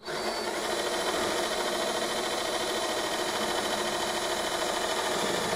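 Cordless drill running steadily under load as its bit bores a hole through the plastic deck of a Pelican Catch 130 HD kayak. It starts abruptly and keeps an even, unbroken pitch.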